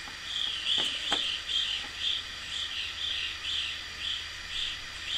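A cricket chirps steadily, about two short high chirps a second. A couple of light clicks come about a second in as the French press lid and plunger are set in place.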